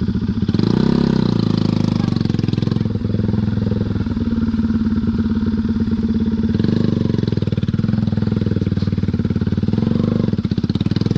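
Bajaj Pulsar NS200's single-cylinder engine running at low speed as the motorcycle is ridden slowly over a rough, rocky dirt trail, with a short throttle blip that rises and falls about a second in.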